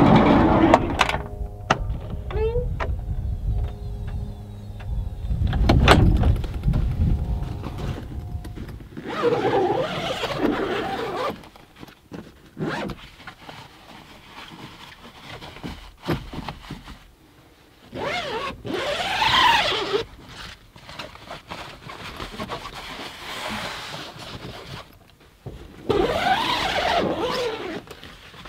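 A 1991 Volkswagen Westfalia camper being opened up: two heavy thunks from its door and pop-top near the start, then three long rasps as zips on the pop-top's canvas window flaps are pulled open.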